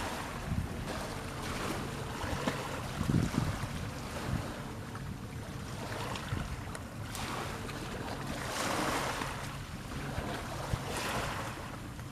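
Wind buffeting the microphone over the wash of sea water, with a faint steady low boat-engine hum underneath; the wind swells in gusts.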